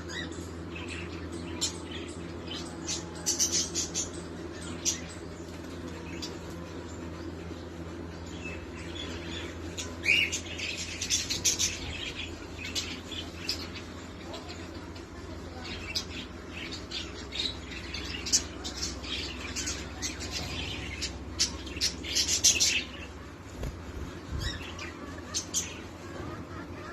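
Pahari tota (Alexandrine parakeets) giving sharp chirping and squawking calls in clusters, busiest about a third of the way in and through the second half, over a steady low hum.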